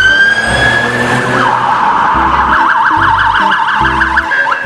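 Police car siren: a rising wail that levels off, then about one and a half seconds in switches to a fast yelp sweeping up and down about five times a second.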